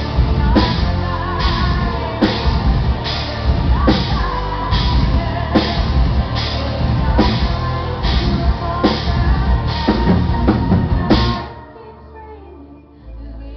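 Symphonic metal band playing live through a PA: pounding drums with a cymbal crash about every 0.8 seconds over distorted guitars and keyboards. About 11 seconds in the full band cuts out abruptly, leaving a quieter sustained sound, with a low note coming in near the end.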